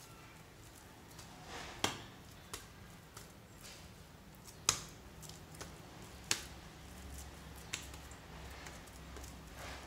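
Fluffy slime being kneaded and pressed by hand, giving a handful of sharp clicking pops, the loudest about halfway through, over soft squishing.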